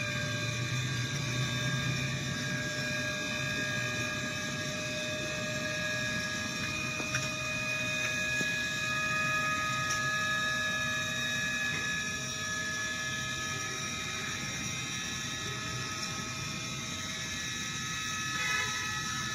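A machine running steadily: a low rumble with several high, steady whining tones held over it.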